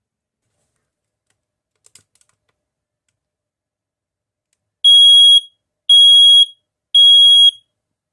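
Smoke alarm sounding its test signal: three loud, high-pitched beeps, each about half a second long with half-second gaps, in the temporal-three alarm pattern. A few faint clicks come about two seconds in.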